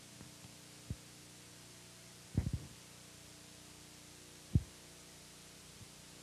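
Faint steady hum of the recording's background, broken by a few short, soft low thumps; the loudest comes about four and a half seconds in.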